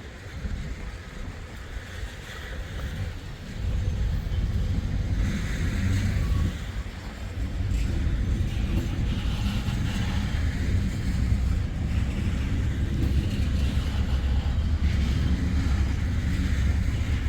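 Wheeling & Lake Erie freight train passing close by: a heavy low rumble comes up about three and a half seconds in and holds steady as the train rolls past.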